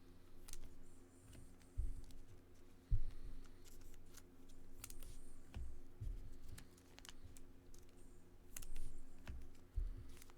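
Trading cards being handled: scattered sharp clicks and light taps as cards are flipped and set down, with several low thumps against the table, over a steady low hum.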